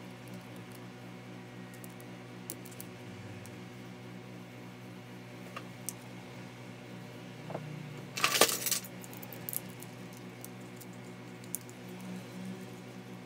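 Metal parts clinking while the hammer, spring and anvil of an impact driver's hammer mechanism are handled and fitted together, with a short burst of metallic clatter about eight seconds in, over a steady low hum.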